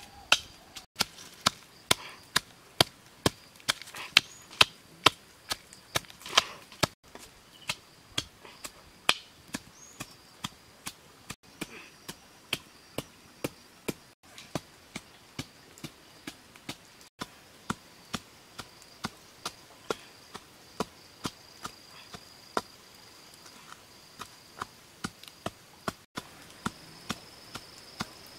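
Steady rhythmic knocking of the end of an axe handle pounding food in a small bowl, about two strikes a second. A faint, steady, high-pitched insect drone runs behind it.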